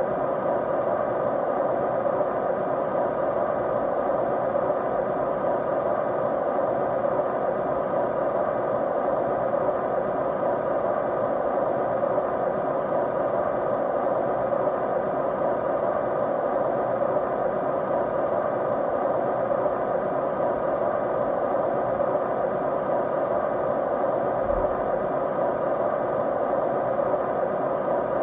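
Steady, unchanging noise for studying or sleep: an even mid-pitched hiss with faint steady tones running through it.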